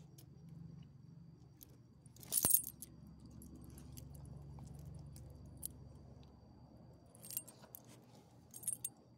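Metal ID tags on a dog's collar jingling as the dog moves its head and rolls on the ground, in three short bursts: the loudest about two and a half seconds in, two smaller ones near the end.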